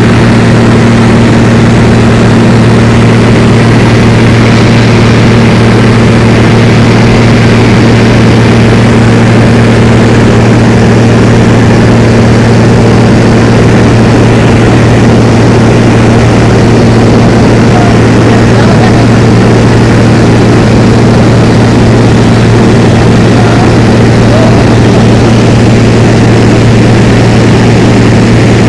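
Steady, loud engine drone: a low hum with a second hum an octave above it, over a constant rushing noise, unchanging throughout.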